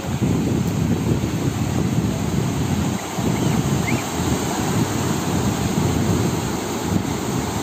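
Waves breaking and washing up over a shallow beach, with wind buffeting the microphone in an uneven low rumble.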